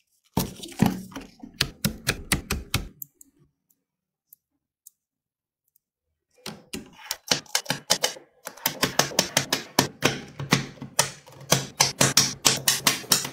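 Small neodymium magnet balls clicking and snapping together as they are pressed and pinched into place: a run of sharp clicks, a pause of about three seconds, then a long stretch of rapid clicking.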